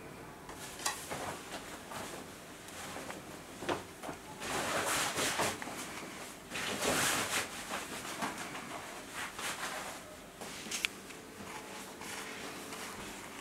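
Cloth rustling and handling noises as clothes are pulled from a shelf and handled, with a few sharp light knocks and clicks; two longer rustles stand out in the middle.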